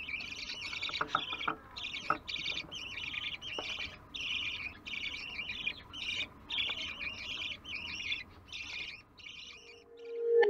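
Budgerigar nestlings in a nest box giving rapid, raspy begging calls, about two a second, which fade out near the end. A few faint clicks sound in the first couple of seconds.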